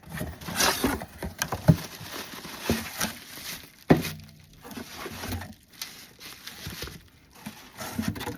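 A slime bundle being unboxed by hand: irregular rustling and crinkling of packaging with small clicks and knocks as the contents are handled, and one sharp knock about four seconds in.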